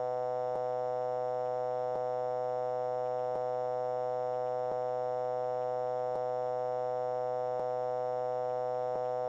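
A steady synthesized tone with many overtones, held at an even pitch and level, with a faint click about every second and a half, as where a looped sound sample repeats.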